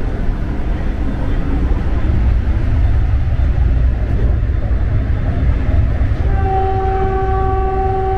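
Vande Bharat Express train running, a steady low rumble of wheels on the track. About six seconds in, a train horn starts sounding one long, steady note.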